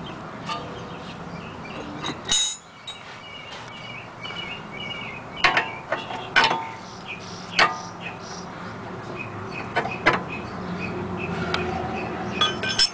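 Open-end wrench tightening the jam nut on a Honda Odyssey outer tie rod: about six sharp metal clinks spread a second or more apart, as the wrench is worked and repositioned on the nut.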